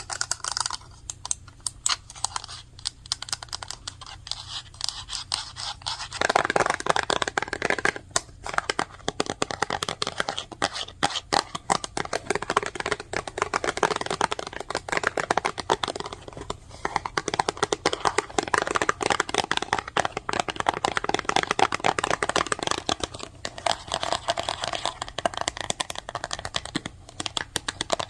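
Very fast typing on a computer keyboard: a rapid, continuous clatter of key clicks. About six seconds in it turns louder and much denser, a scratchy rattle of keystrokes.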